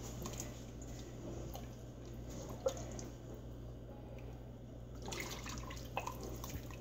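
A spoon stirring creamy chicken broth in a large enamel stockpot: soft sloshing and dripping of the liquid, with light taps of the spoon against the pot, the sharpest a little under three seconds in and a couple more around six seconds. A steady low hum runs underneath.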